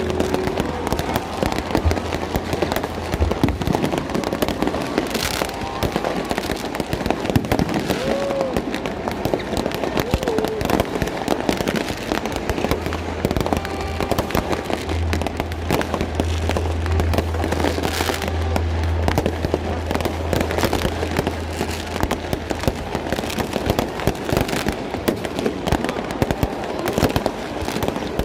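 Fireworks display going off continuously: dense, overlapping bangs and crackling with no let-up.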